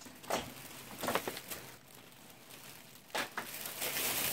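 Plastic shopping bag crinkling as items are moved about in it: a few short rustles, then a steadier rustle near the end.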